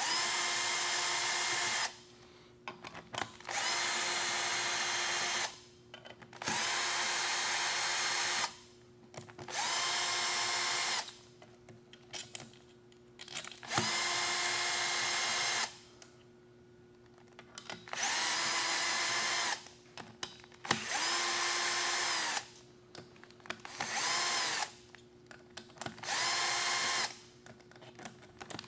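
Compact cordless drill/driver running in a series of short bursts of one to two seconds, each spinning up and winding down, as it backs loosened 10 mm camshaft bearing cap bolts out of the cylinder head.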